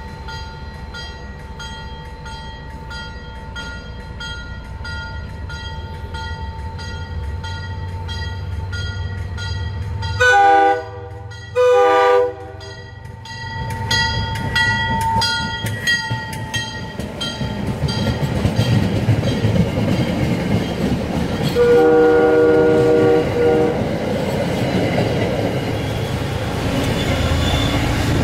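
A train approaching and passing: a bell rings about twice a second, then the horn sounds two short, loud blasts about ten seconds in. The rumble of the train then builds as it goes by, with a third, quieter horn blast a little after twenty seconds.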